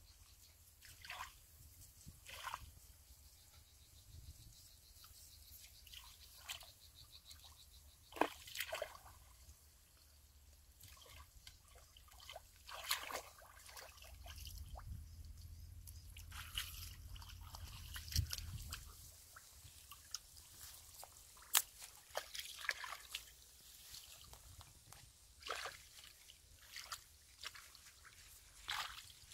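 Hands groping through shallow muddy water, with irregular small splashes, sloshes and drips, some sharper than others, and feet wading in mud near the end.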